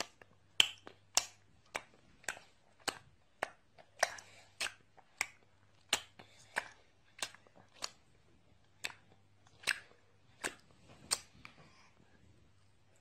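A baby's lips and tongue smacking on a lemon slice: a run of sharp, wet mouth clicks about every half second, stopping near the end.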